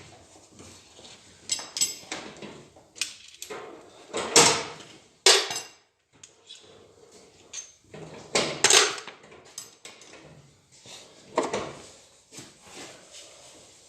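Metal tools and engine parts being handled on a workbench during an engine teardown: a series of irregular clanks and knocks, the loudest about four, five, eight and a half and eleven seconds in, with quieter rattling between.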